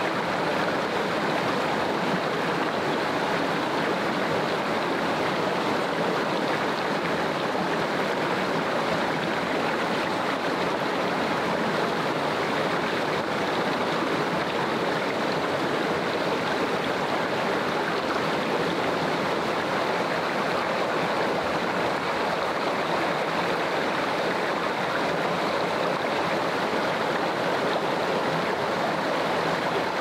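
Loud, steady rush of flowing water, unchanging throughout.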